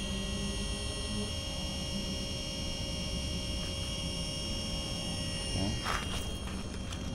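DJI Avata drone's motors turning HQProp four-blade propellers at idle, a steady whine made of several fixed tones, with a couple of knocks about six seconds in.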